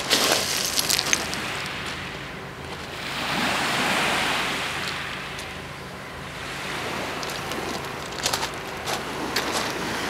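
Sea surf: small waves breaking and washing up the shore, the wash swelling to its loudest about four seconds in, easing off, then rising again more gently.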